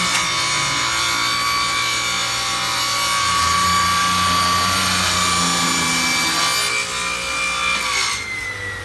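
Grizzly G0771Z table saw cutting wood: a steady high blade-and-motor whine over the rushing noise of the cut. Near the end the cutting noise stops and the whine starts to fall in pitch as the blade spins down.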